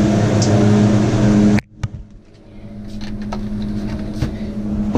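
Walk-in cooler's refrigeration unit humming loudly and steadily. About a second and a half in, the hum drops off abruptly to a much fainter hum, with a few light clicks and knocks.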